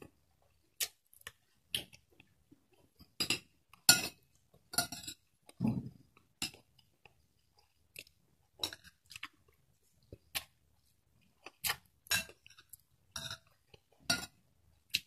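Mouth sounds of someone chewing and eating rice, with a spoon and fork clinking against a plate. A string of short, separate noises at irregular intervals.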